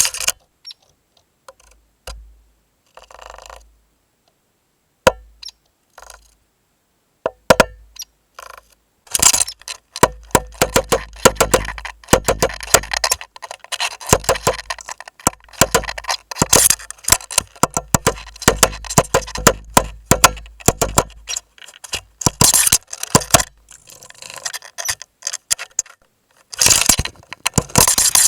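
A woodpecker pecking and drilling at the plastic housing of a trail camera, heard close up through the camera's own microphone as sharp taps. A few scattered taps give way, about nine seconds in, to a long rapid run of pecks lasting some twelve seconds, with another burst near the end.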